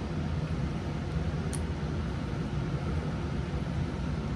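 Steady low background rumble, with one faint light click about a second and a half in.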